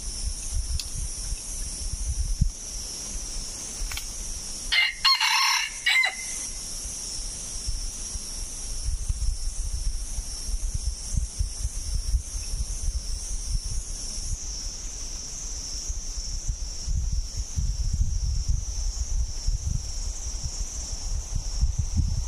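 A junglefowl rooster crows once, a short crow of about a second and a half about five seconds in, over a steady high insect drone.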